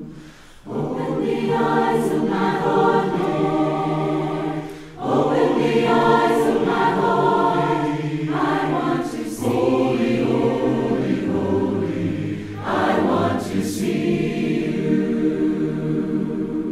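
Choir singing in harmony, long chords held for several seconds with brief breaks between phrases.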